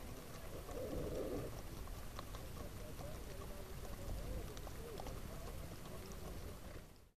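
Herd of Icelandic horses on the move with riders, hooves on a dirt track and grass heard from horseback over a steady low rumble; the sound fades out just before the end.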